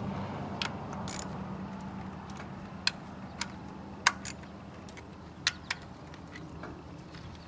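Sharp little plastic clicks and taps, about eight spread over several seconds and some in quick pairs, as the electrical connectors on the ignition coils are pressed home and checked.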